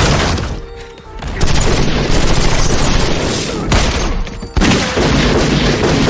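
A sudden boom, then sustained rapid gunfire with crashes, dipping briefly a little before four seconds in, over film score music.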